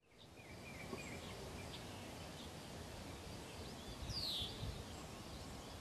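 Faint outdoor ambience with birds chirping: scattered short chirps and one clearer falling call about four seconds in, over a low steady rumble. It fades in from silence at the start.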